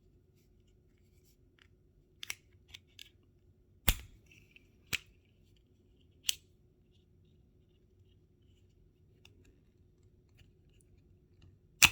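Sharp plastic clicks and snaps from a 2017 Audi Q7 key fob's casing being pressed and pried apart to reach its coin battery: a handful of scattered clicks, the loudest a couple of seconds apart early on and one more just before the end.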